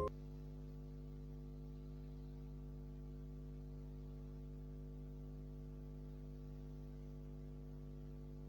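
A steady, faint electrical hum, a low drone made of several even tones that never changes.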